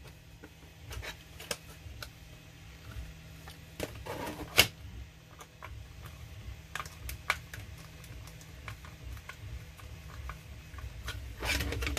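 Scattered light clicks and taps of a small screwdriver and the hard plastic shell of a Nerf Rival Takedown being worked and handled, the sharpest tap about four and a half seconds in, over the steady low hum of a Tarantula Pro 3D printer running in the room.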